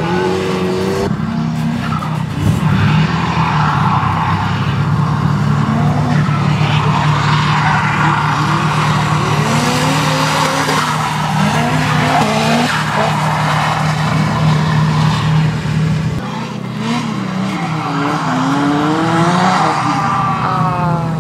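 Nissan Silvia drift cars (S14 and S15) sliding through corners on a wet track, one after another. Their engines rev hard, rising and falling with the throttle, over continuous tyre noise.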